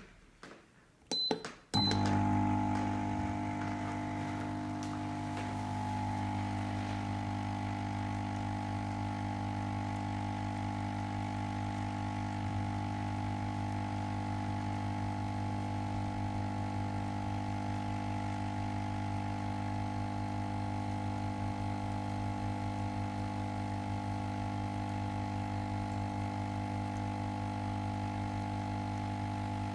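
Ozone generator switched on: a couple of clicks and two quick high beeps, then its fan and transformer settle into a steady hum. The unit is running but, by the owner's account, not making ozone.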